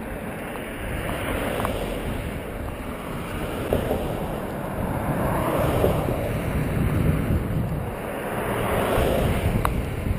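Wind rumbling on the microphone, mixed with road traffic going by; the noise swells in the middle and again near the end.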